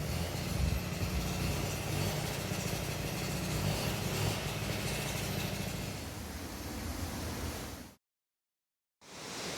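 Steady rushing noise of the Manuaba waterfall under a heavy, uneven low rumble. About eight seconds in it cuts off to a second of dead silence, then the steady rush of the waterfall comes back.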